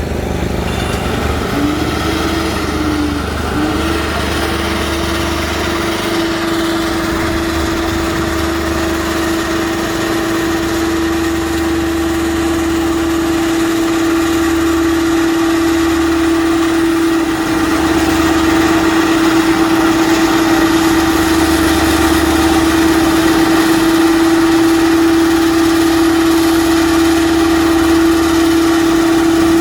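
A machine's engine running steadily, with a strong steady whine that wavers briefly near the start and then holds one pitch over a low pulsing hum, getting slightly louder after about seventeen seconds.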